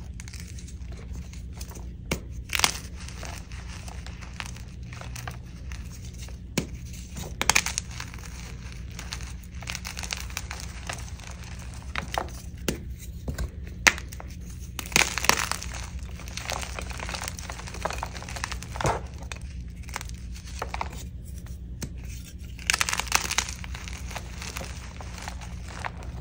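Blocks of dyed gym chalk being squeezed and crumbled by hand: soft, crunchy crumbling with irregular sharper cracks now and then, the loudest clusters about 15 and 23 seconds in. A steady low hum runs underneath.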